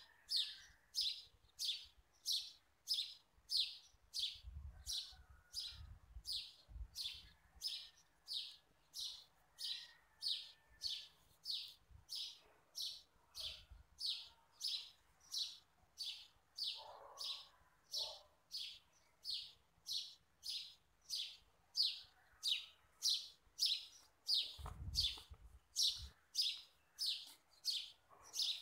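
A bird chirping over and over, short high chirps about three every two seconds, very regular. Faint handling thuds come in a few times underneath.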